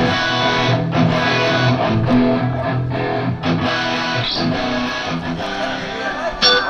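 Electric guitar strumming chords during a band sound check.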